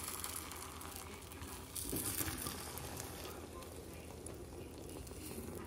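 Beaten eggs mixed with cottage cheese frying in a cast iron skillet with a soft, steady sizzle, a silicone spatula pushing through them.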